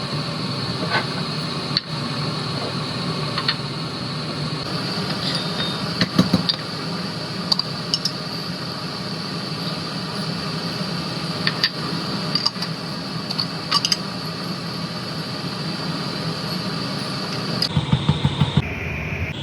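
Steady mechanical hum with scattered sharp clinks of glass or utensils, typical of kitchen work over a running appliance.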